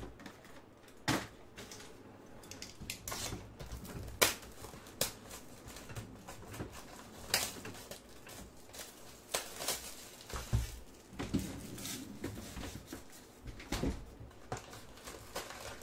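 Plastic shrink wrap crinkling and crackling as it is torn off a sealed box of trading cards, with irregular sharp clicks and snaps, several of them louder.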